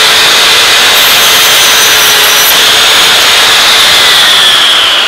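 Metabo sliding compound mitre saw running at full speed, its blade cutting a compound mitre through a ceiling moulding, with a steady high whine from the motor. Near the end the motor begins to wind down, its whine falling.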